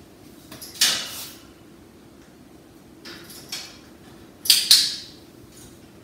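Short rattles and knocks from hands working at a wire parrot cage: one about a second in, a lighter pair around three seconds, and a loud double one at about four and a half seconds.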